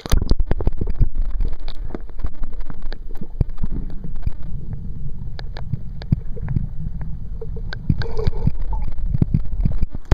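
Underwater sound heard through a camera microphone dunked in a pond: a loud, muffled rumbling and gurgling of water, broken by many sharp clicks and knocks.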